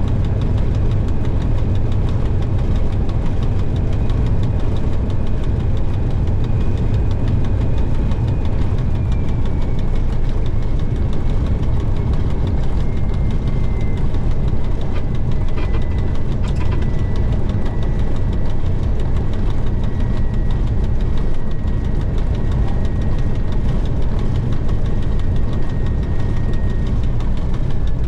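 TEM2 diesel locomotive's six-cylinder PD1M engine running steadily under the cab, with a faint whine that slowly drops in pitch and a couple of brief knocks about halfway through.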